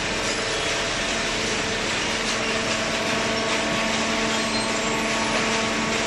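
Hydraulic baling press running: a steady machine hum with several constant tones over a loud, even hiss.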